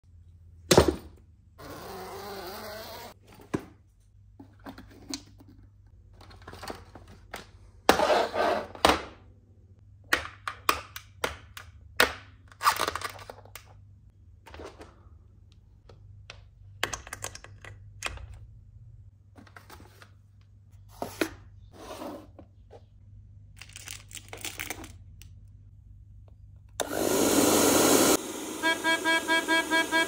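Scattered knocks, clicks and short rustles of handling. Near the end a hair dryer blows loudly for about a second, then a Hohner melodica driven by the hair dryer's air sounds a run of fast repeated reed notes.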